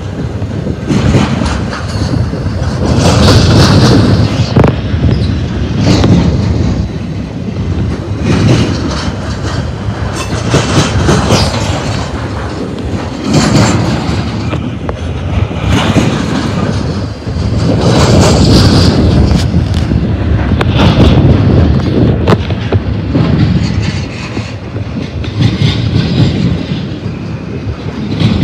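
Double-stack intermodal freight cars rolling past close by: steel wheels rumbling on the rail, with repeated clacks as the wheels cross the rail, swelling and easing every few seconds as each set of wheels goes by.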